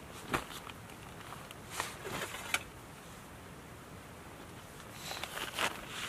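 Fabric rustling as a blanket is handled inside a small tent: a brief rustle near the start, then short clusters of rustles about two seconds in and again about five seconds in.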